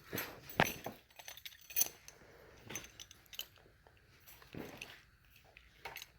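Rustling and scattered light metallic clinks of items being handled and sorted.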